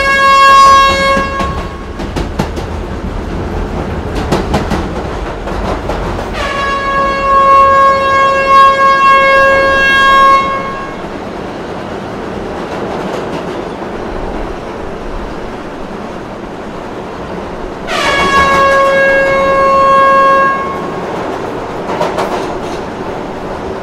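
A train's horn blowing long single-pitched blasts: one ends about a second and a half in, another lasts about four seconds from around six seconds in, and a shorter one sounds around eighteen seconds in. Between the blasts there is steady train and platform noise.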